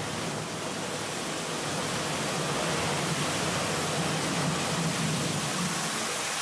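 About 85 gallons of water released at once and pouring down a tall vertical panel, a steady heavy rush of falling water.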